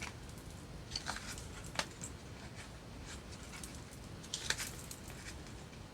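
Faint rustling with a few short clicks and taps as paper and card craft supplies are handled and sorted through.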